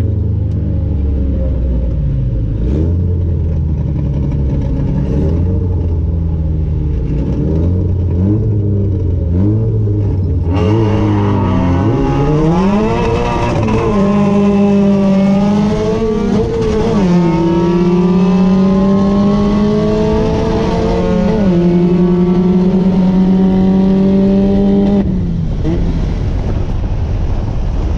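Car engine heard from inside the cabin, idling with short throttle blips, then, about ten seconds in, accelerating hard: the pitch climbs and drops back at several gear changes before the driver lifts off near the end.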